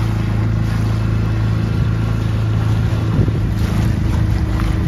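Dinghy's outboard motor running at a steady cruising speed, a constant low engine drone.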